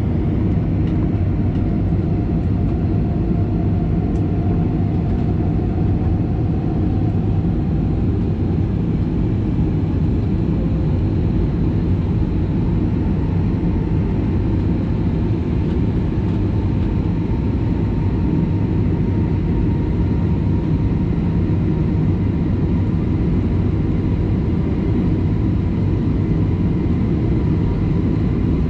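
Steady engine and air noise inside the cabin of an Airbus A321neo jet airliner, with a faint whine that slowly creeps up in pitch.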